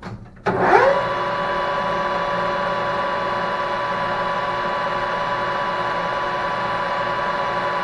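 Metal lathe switched on about half a second in: the spindle spins up with a short rising whine, then runs steadily at speed with a hum of several steady tones.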